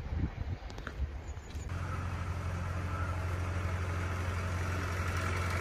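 Gusty wind rumble on the microphone, then, from under two seconds in, a vintage tractor's engine running with a steady low hum that grows slightly louder as it approaches.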